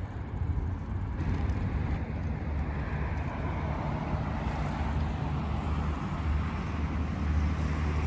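Steady rumble and hiss of motor traffic, with no distinct events standing out.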